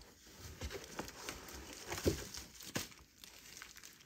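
Foam packaging wrap crinkling and rustling with scattered crackles as a wrapped machine is slid out of its cardboard box; the loudest crackles come about two seconds in and again shortly after.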